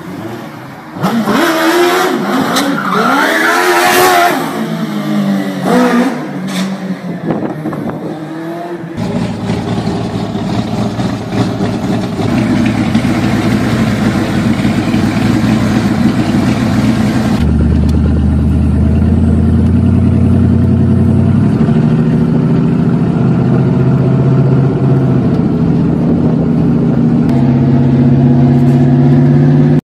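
A small hatchback's engine revving hard, its pitch rising and falling, for about the first nine seconds. Then a Fiat 124 fitted with a 5.0-litre V8 engine running; from about halfway on the car is being driven and the V8 note turns deeper and louder, stepping down and up in pitch.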